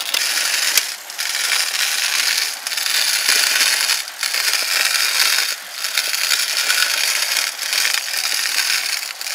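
Cast-iron burr flour mill, chain-driven from bicycle pedals, grinding rice: a steady rasping grind of the plates rubbing tight, dipping briefly about every one and a half seconds.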